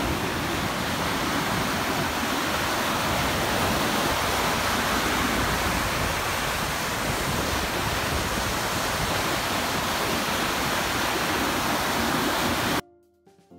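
White water rushing and churning through a steel river-weir gate, a loud, steady rush. It cuts off suddenly near the end, and soft music notes follow.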